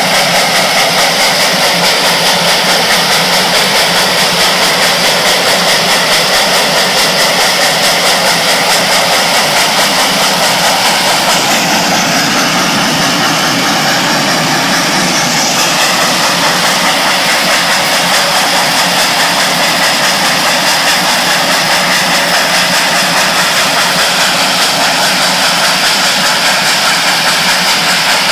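Reading & Northern No. 425, a 4-6-2 Pacific steam locomotive, running at speed: a loud, steady rush of exhaust and motion with a fast, even pulsing beat. The tone changes briefly near the middle.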